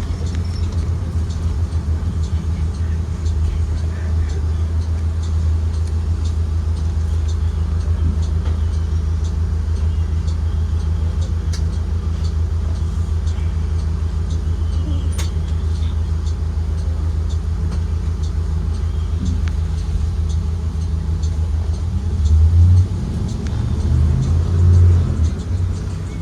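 Ride inside a 2023 Blue Bird Vision school bus with its Ford 7.3L V8 running: a steady low drone with small rattles and clicks throughout, swelling louder twice near the end.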